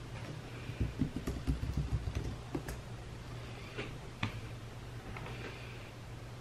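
Small handling sounds on a desk beside a computer keyboard: a run of soft low knocks for about two seconds, then two sharp clicks, over a steady low hum.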